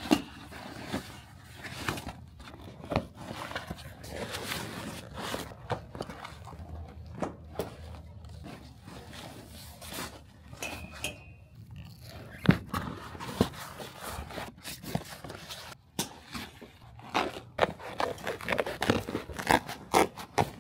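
Irregular clicks, knocks and scrapes of hands working, with a short high squeak about eleven seconds in and a sharper knock soon after.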